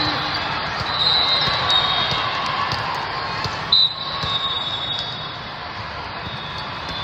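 Busy volleyball tournament hall: crowd chatter with volleyballs thudding off hands and floor across the courts. About four seconds in, one short, loud, high blast, the referee's whistle for the serve.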